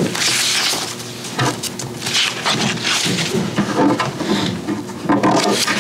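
Sheets of paper rustling and being shuffled as they are picked up and sorted, in short noisy bursts with a few light knocks.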